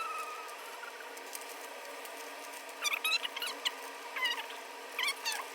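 Plastic Rubik's Cube being turned by hand: short bursts of clicking and squeaking as the layers rotate, a few clusters in the second half.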